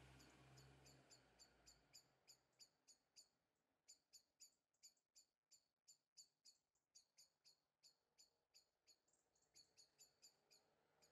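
Near silence, with a long run of faint, short high-pitched chirps repeating several times a second.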